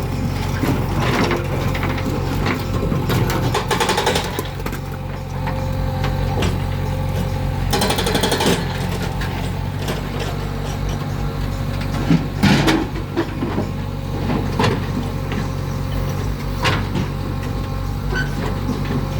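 JCB 3DX backhoe loader's 49 hp diesel engine running steadily while it works, with scattered knocks and clanks as the stones are handled, the loudest about twelve and a half seconds in, and a brief rattle around eight seconds in.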